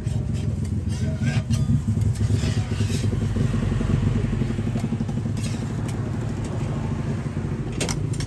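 A small engine running steadily with a fine rapid pulse, louder in the first few seconds. Over it come short scrapes and clicks of a metal spatula on a cast-iron pancake pan, and one sharp knock near the end.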